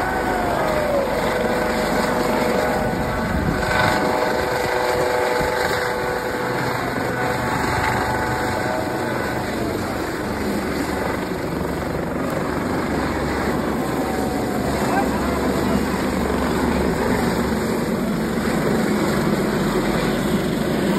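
A twin-engine helicopter with a fenestron tail lifts off and climbs away. Its rotor and turbines run at take-off power, making a loud, steady noise, and the turbine whine fades over the first half. A crowd's voices mix in underneath.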